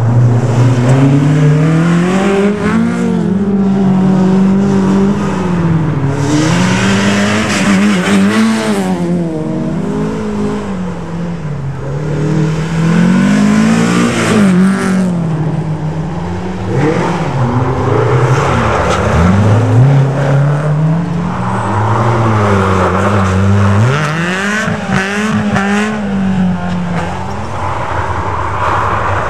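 Rally car engines revving hard on a snowy stage, the pitch climbing and dropping again and again as the drivers shift and lift through the corners. Bursts of hiss as a car slides past throwing snow.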